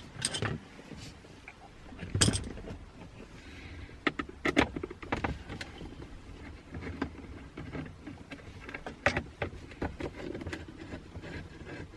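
Car interior trim being worked on by hand: scattered clicks, knocks and rustles of plastic console panels and parts being handled, the loudest knock about two seconds in.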